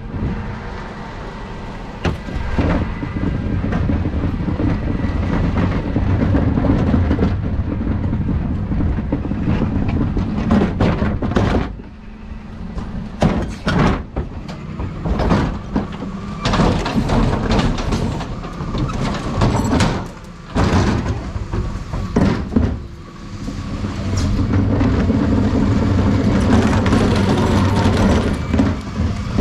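Dennis Eagle Elite 6 bin lorry's diesel engine idling steadily, with the knocks and rattles of plastic wheelie bins being wheeled to the back of the truck, thickest in the middle of the stretch.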